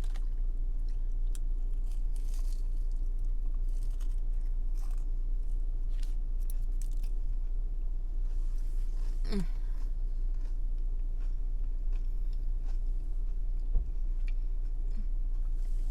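A person chewing and biting food close to the microphone, with faint crunches and small mouth clicks, over a steady low hum. A single knock sounds near the end.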